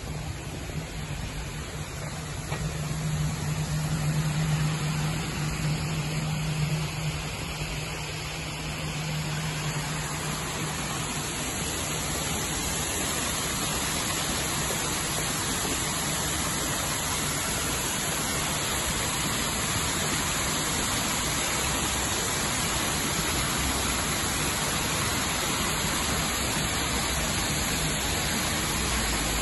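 Water running down a stepped cascade fountain, a steady rushing wash that grows over the first ten seconds or so and then holds. A low steady hum sits under it at first and fades out.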